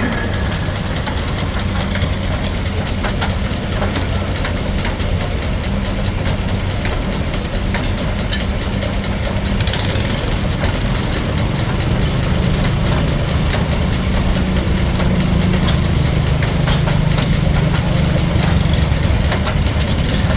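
Steam engine driving a Frick sawmill, running steadily with a low hum and a fast, even pulsing; the hum gets a little louder about halfway through.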